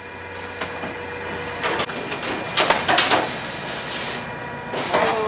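Metal trays of squid scraping and clattering as they are slid into a ship's blast-freezer racks, over a steady machinery hum with a few held tones.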